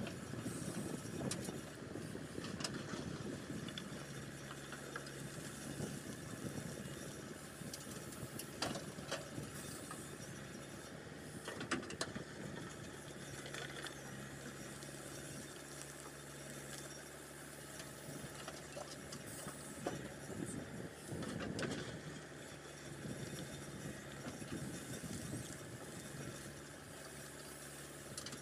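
JCB 3DX backhoe loader's diesel engine running steadily as the backhoe works. Now and then there is a burst of rattling as soil and stones pour from the bucket into a tractor trolley, and a few sharp knocks.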